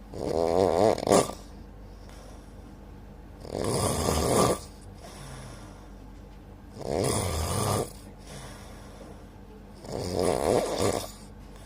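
A sleeping person snoring: four snores, each about a second long, come roughly every three seconds over a steady low hum.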